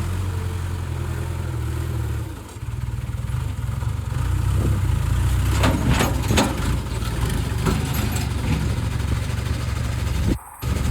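Backhoe engine running steadily with a low rumble, easing briefly about two seconds in, and a few sharp knocks around six seconds in. The sound drops out for a moment near the end.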